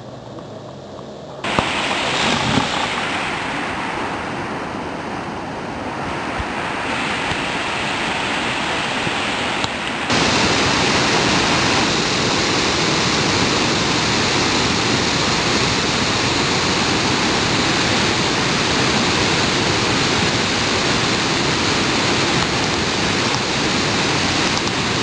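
Victoria Falls: a steady, dense rush of water plunging into the gorge. It grows louder about a second and a half in and steps up again about ten seconds in.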